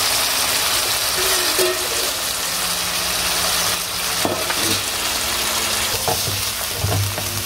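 Boiled mutton and its stock sizzling in a wok of hot oil and fried spices, a steady hiss. From about four seconds in it is stirred with a wooden spatula, with a few short scrapes and knocks.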